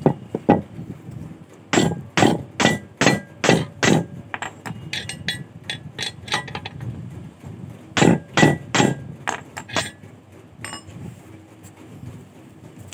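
Hammer blows on metal at a bench vise, each with a short metallic ring: a run of about six sharp blows, lighter taps, then a second run of a few blows.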